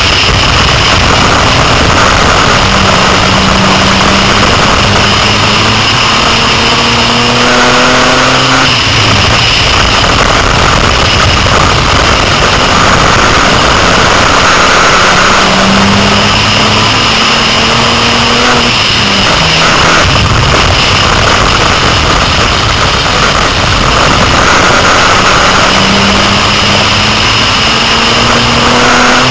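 Six-cylinder dirt-track race car engine at full throttle, heard loud from inside the car. The engine note climbs and then falls away three times, about every ten seconds, as it speeds up on the straights and eases off for the turns.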